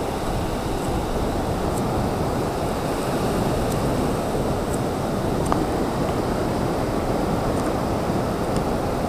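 Small surf waves breaking and washing up the sand at the water's edge: a steady rushing wash, with some wind noise on the microphone.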